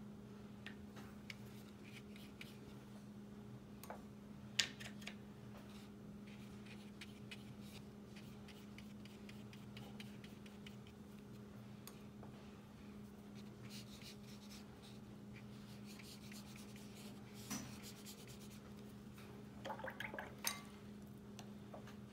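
Faint, scattered small taps and light rubbing from watercolour painting, the brush working on paper and knocking against the painting tools, over a steady low hum. A sharper tap comes about four and a half seconds in, and a quick cluster of taps comes near the end.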